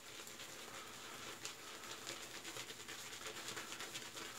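Shaving brush swirled and scrubbed on a tallow shaving-soap puck to load it with soap: a faint, continuous patter of small rapid ticks and swishes.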